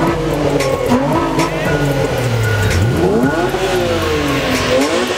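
A sports car engine revved at a standstill. The engine's pitch sags, then two quick rev blips rise and fall about two seconds apart, the second near the end.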